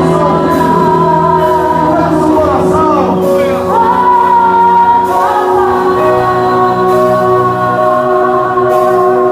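Live worship music: a woman singing through a loud sound system over held, sustained accompaniment.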